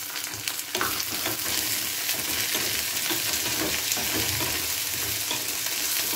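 Diced potato frying and sizzling in hot oil in a metal wok, with onion and curry leaves, stirred with a wooden spatula that scrapes and clacks against the pan from about a second in.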